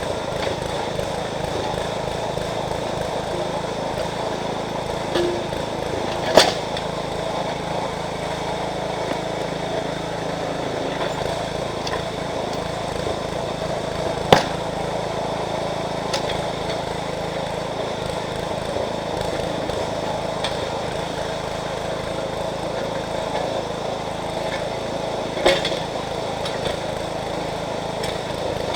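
The engine of a Jansen MB 300 towable backhoe running steadily while digging, with three sharp knocks spread through.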